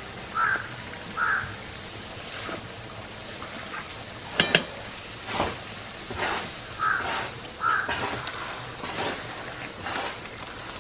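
Crows cawing outside, two pairs of short caws, while a flat metal spatula stirs and scrapes through a thick meat curry in a metal cooking pot. About four and a half seconds in comes the loudest sound: a sharp double clink of the spatula against the pot.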